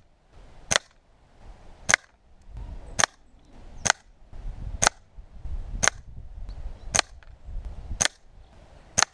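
Gamo Whisper Sting air rifle shots: nine sharp reports, evenly spaced about a second apart.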